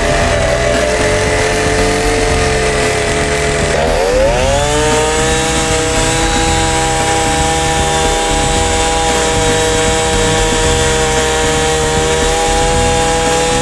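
Small engine driving an oil mop skimmer, running steadily at a constant speed. About four seconds in, its pitch dips and then climbs, holding at a higher speed.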